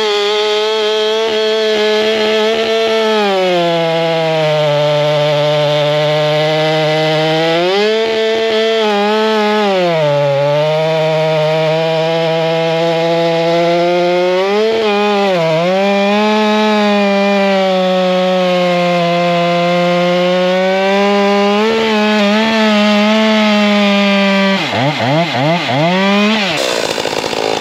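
Stihl 462 two-stroke chainsaw at full throttle, cutting through an oak log with a sharp new regular chain. The engine holds a steady high pitch, sagging only slightly under load a few times without bogging. Near the end the throttle is let off and the revs drop and waver as the cut finishes.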